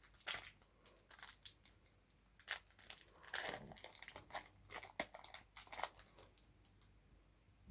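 Foil booster-pack wrapper being crinkled and torn open, an irregular run of sharp crackles that dies away about six seconds in.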